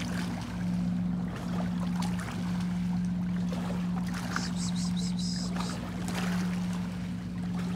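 Boat motor running steadily, a constant low hum. About halfway through there is a short run of faint high-pitched chirps.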